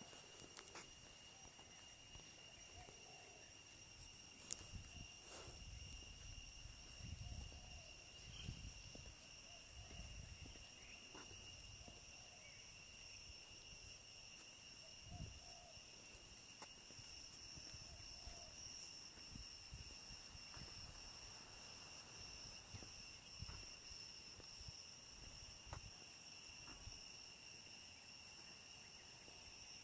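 Faint, steady chorus of insects in a tropical garden: several shrill high tones held without a break. Under it come patchy low rumbling and a few sharp clicks.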